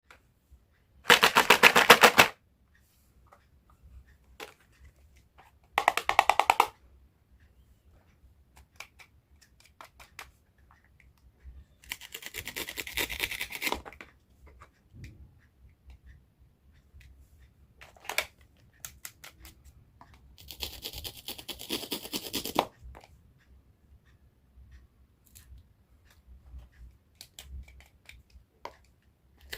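Knife chopping produce on a cutting board: four quick runs of rapid strokes, the first and loudest about a second in, with single taps and cuts scattered between them.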